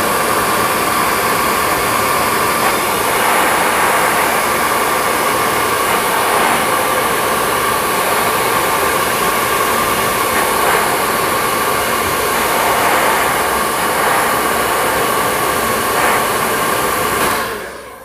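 Hair dryer running on its hot setting, a steady rush of air with a thin steady whine, stopping near the end.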